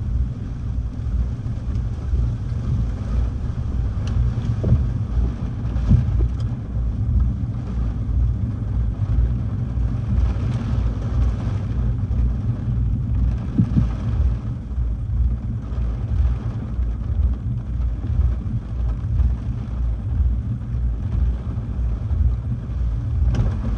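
Strong hurricane wind gusting and buffeting the microphone: an uneven low rumble that surges and eases with the gusts, with a few faint knocks.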